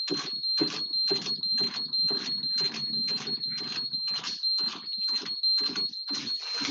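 Stepper-motor antenna positioner turning under its SMC10 controller in automatic mode: a steady high-pitched whine with an even pulsing about three times a second as the motor steps the antenna round.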